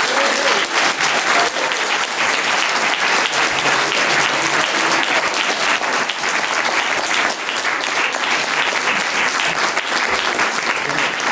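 Sustained applause from a roomful of people clapping.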